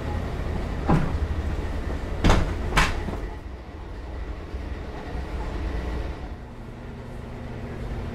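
A steady low rumble of room noise, with three short knocks: one about a second in and two close together a little after two seconds, the second of these the loudest.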